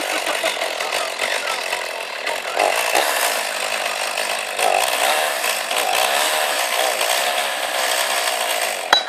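Two-stroke petrol chainsaw running, its engine revving up and down. It stops abruptly near the end.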